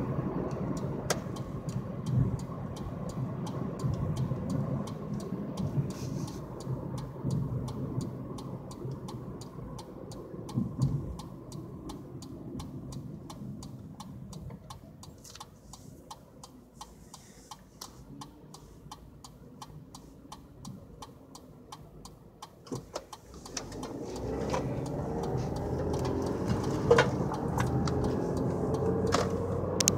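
Distant rolling thunder rumbling and dying away over the first half, with faint regular ticking underneath. A steady low rumble builds again about three-quarters of the way through, with a couple of sharp clicks near the end.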